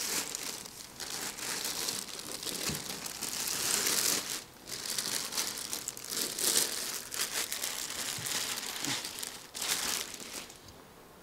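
Clear plastic bag crinkling as it is pulled and slid off a metal model wheel loader, an uneven run of rustles that dies down near the end.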